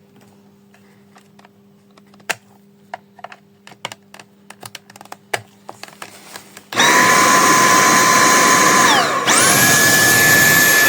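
Scattered plastic clicks and taps of handling, then a Dyson cordless stick vacuum switches on, running from a newly fitted aftermarket battery with a loud steady whine from its high-speed motor. About two seconds later the whine falls away, and the vacuum starts again at a higher pitch.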